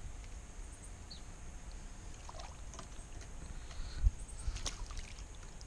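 Kayak being paddled: small water splashes and drips from the paddle, with one sharp knock against the plastic hull about four seconds in and a few lighter knocks just after, over a low rumble.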